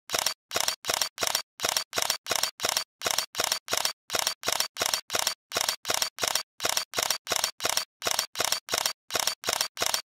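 Camera shutter firing over and over, about three shots a second in runs of three or four with short gaps, then stopping abruptly near the end.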